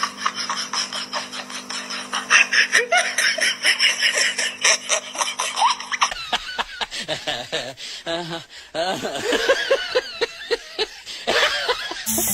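A person laughing in repeated short bursts.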